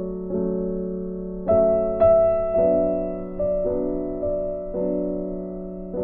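Gentle background piano music, single notes struck about once a second and fading away, with the loudest notes about one and a half and two seconds in.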